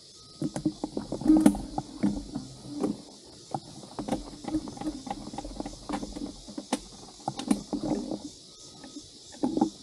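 Irregular thumps, knocks and scrapes of a Beta 250RR dirt bike being manhandled over rough, muddy ground with its engine not running, with the rider's footsteps in the mix. A steady high insect buzz runs behind.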